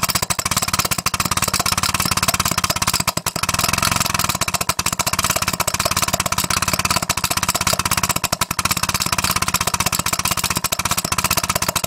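Small homemade single-cylinder steam engine running fast on compressed air, giving a steady train of rapid pulses. A harsh metal-on-metal clatter runs through it: the little valve screw hitting the side and knocking up and down, not the engine breaking. The valve needs a pad to stop it.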